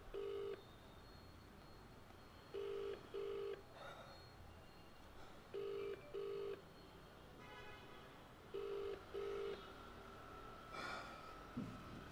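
Ringback tone of an outgoing phone call: a low double ring, two short beeps close together, repeating every three seconds, four times and then stopping. A short knock sounds near the end.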